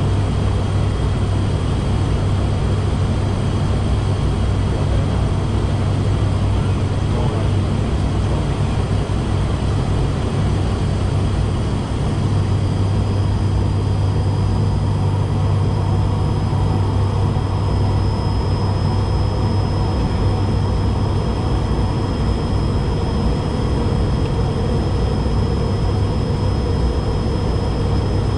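Steady drone of an ATR 72-600's two Pratt & Whitney PW127 turboprop engines and propellers, heard inside the cockpit together with airflow noise on the descent. A thin high whine joins the drone about twelve seconds in and holds.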